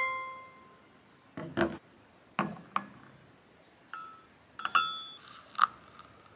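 A metal spoon clinking against a porcelain cup and saucer while ground coffee is spooned into a drip filter. There are a handful of short clinks, some with a brief ringing tone.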